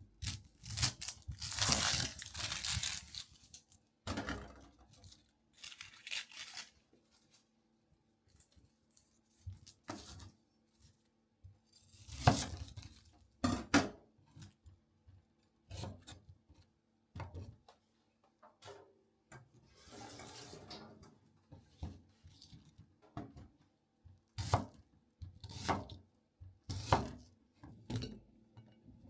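Kitchen handling sounds: packaging being torn and rustled, with short knocks and clinks of dishes and utensils set down at irregular moments.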